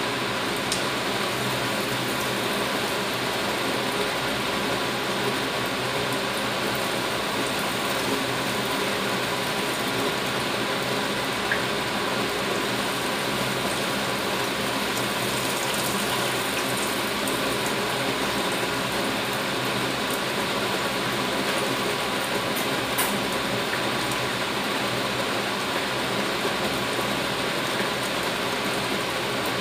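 Patties deep-frying in a pan of hot oil, a steady sizzle, over the steady hum of a fan running. A few light clicks as a slotted spatula touches the pan.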